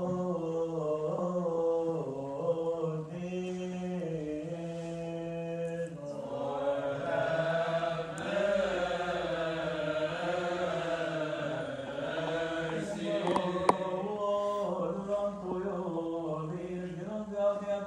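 Voices chanting a Coptic Orthodox liturgical hymn, with long drawn-out melismatic notes over one low note held steady beneath. About six seconds in, more voices join and the chant grows fuller, and a couple of sharp clicks sound a little past the middle.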